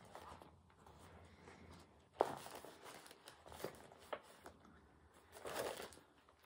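Quiet handling noises of craft supplies being sorted: a single sharp knock about two seconds in, a few light taps, then a sheet rustling near the end.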